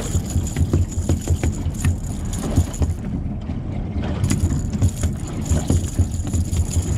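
Steady low rumble aboard a small fishing boat, with frequent small knocks and rattles on the deck.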